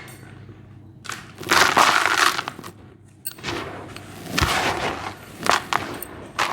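Dry white cement chunks crumbling and crunching in several gritty bursts, with a sharp knock about four and a half seconds in.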